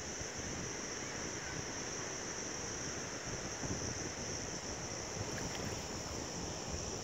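Wind buffeting the microphone over shallow, rippling lake water, with a steady high-pitched hiss underneath.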